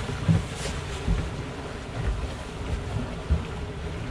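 Twin outboard motors running at trolling speed, with water churning in the wake. Gusts of wind buffet the microphone, giving uneven low thumps.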